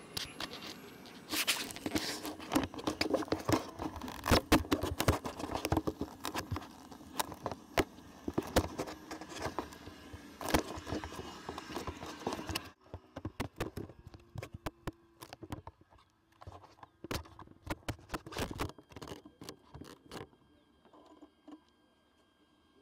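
Close handling noise on a small camera's microphone: irregular scraping, tapping and crackling, dense and fairly loud, turning sparse and fainter about halfway through. No motor is running.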